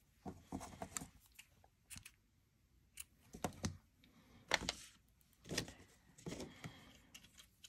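Irregular light taps, clicks and brief rustles of hands handling paper and craft supplies on a work table.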